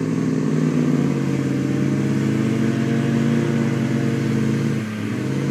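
Two pickup engines held at high revs under full throttle, a 2012 Ford F-150's twin-turbo EcoBoost V6 and a Dodge Ram 1500, straining against a tow strap while their tires spin on wet grass. The revs hold steady, dip briefly about five seconds in, then climb back up.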